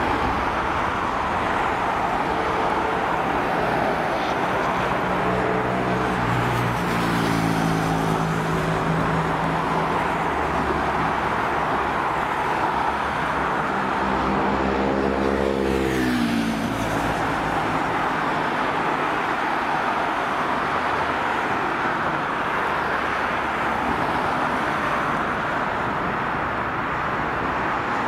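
Boeing 767-300ER's twin CF6-80 turbofan engines running at taxi power, a steady jet rumble and hiss. From about two seconds in a pitched drone swells, then drops in pitch around sixteen seconds in as the source passes.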